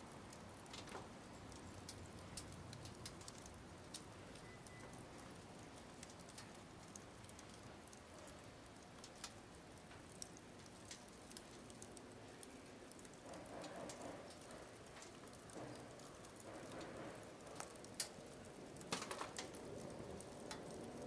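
Firewood burning in a fire pit, crackling with scattered faint pops over a low steady hiss; the pops come thicker near the end, with one sharper snap.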